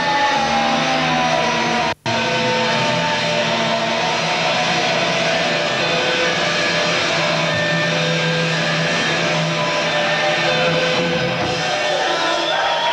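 A rock band playing live, with an electric guitar holding long sustained notes over low held notes. The sound cuts out for an instant about two seconds in.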